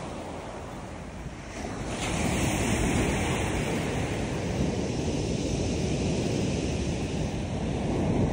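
Rough Black Sea surf breaking on the shore, a dense steady rush that swells louder about two seconds in, with wind buffeting the microphone.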